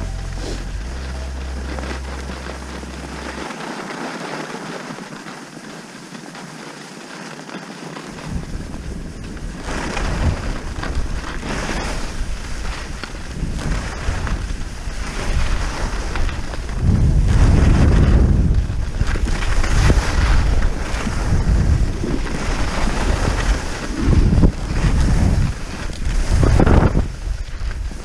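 Wind buffeting the microphone during a fast downhill ski run, over the hiss of skis sliding and carving on snow. The low wind rumble comes in swells that grow much louder about halfway through.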